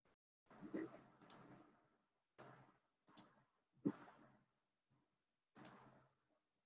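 Faint computer mouse clicks, about six short separate clicks with a brief rustle after each, the loudest a little before the end, heard as a screen share is set up.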